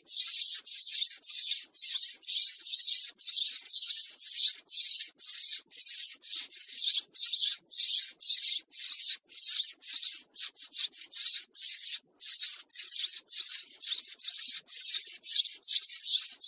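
Sparrow chirping repeatedly: short, high chirps about three to four a second in a steady run, with one brief pause about twelve seconds in.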